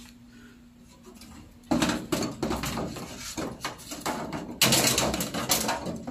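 Rapid clattering and knocking of hard objects being handled, starting after about two seconds and loudest near the end.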